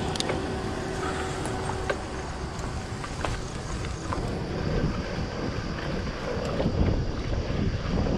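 Wind buffeting the microphone and the rumble of a Cannondale Bad Boy bicycle's tyres rolling over a rough, broken road, growing louder in the second half as the bike gathers speed. A few sharp clicks come in the first few seconds.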